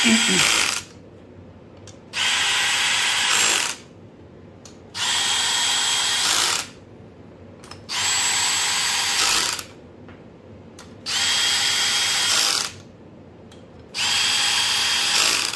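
A DeWalt Atomic cordless drill on a low torque setting runs head-stud nuts down onto a VQ37VHR cylinder head, just snugging each one. It makes six short runs about every three seconds, each a steady motor whine lasting about a second and a half, one nut after another.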